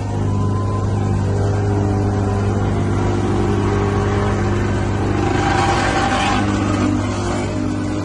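Engines of asphalt paving machinery running steadily, led by a small Wacker Neuson double-drum roller passing close by, with a low hum throughout. About five to seven seconds in, a louder hissing, rattling noise rises over it and then fades.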